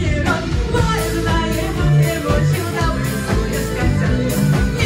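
Live rock band playing: electric guitar, bass guitar and drums keeping a steady beat, with a woman singing.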